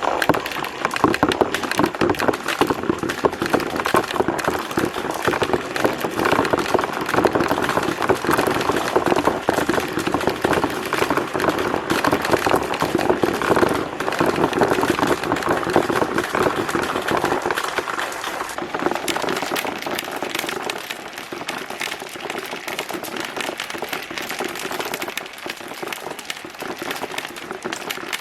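Many marbles rolling and clattering down a marble run track in a dense stream of rapid clicks, thinning out somewhat in the last third.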